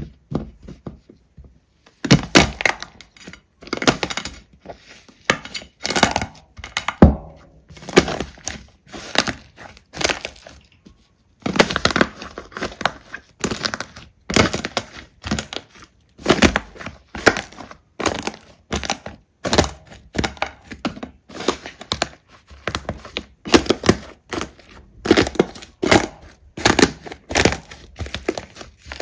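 Hands squeezing, pressing and stretching large slime, making rapid runs of short sticky pops and clicks in bursts. Only a few faint clicks in the first two seconds, then dense bursts with a short pause a little before halfway.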